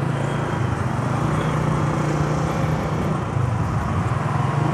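Honda CG125 single-cylinder four-stroke engine running steadily while the motorcycle is ridden, heard from the rider's helmet with an even rush of wind and road noise.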